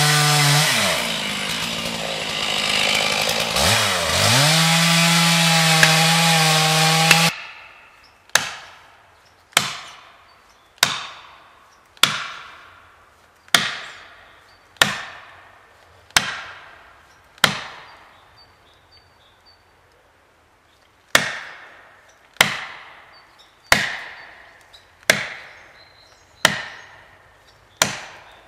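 Two-stroke chainsaw running at full throttle in a beech trunk, the revs dragging down twice under the cut, then stopping abruptly about seven seconds in. After that come sharp, ringing blows at the base of the tree, about one every 1.3 seconds: eight blows, a short pause, then six more, typical of driving a felling wedge into the back cut to tip the tree.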